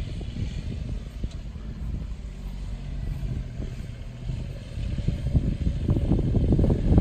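Gusts of wind buffeting the microphone with a ragged low rumble, easing off in the middle and swelling again near the end, over the faint running of a John Deere utility vehicle driving across the pitch.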